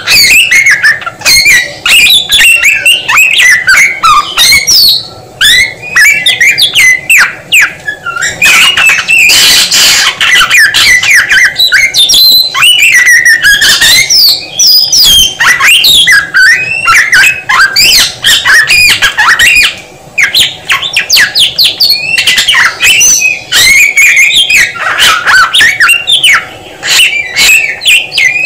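Samyong songbird singing loudly and without pause, a fast, varied run of whistles, chirps and harsh chattering notes that keeps changing phrase, with brief gaps about five seconds in and near twenty seconds.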